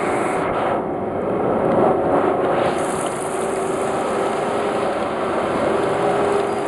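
Vortex fruit-washing machine running: a steady rush of churning water over the even hum of its motor and pump.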